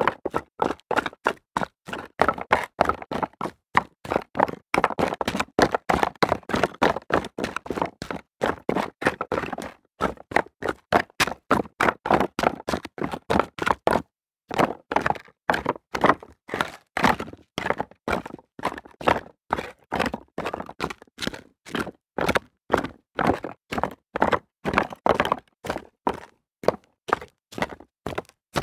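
Foley footsteps of someone running on rocks: a quick, even run of steps, a few each second, with a short break about halfway through.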